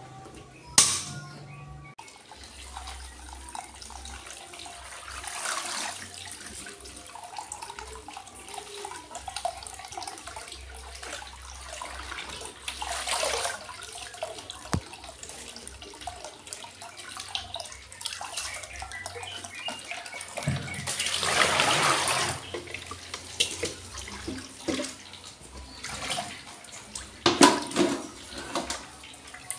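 Water splashing and hissing in bursts several seconds apart while leafy greens are cooked in a wok on a gas burner. The longest burst comes about two-thirds of the way through; a sharp click sounds about a second in.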